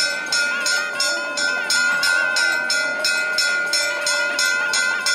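Metal bell rung over and over, about three strikes a second, its ringing tone holding steady between strikes, with crowd voices under it.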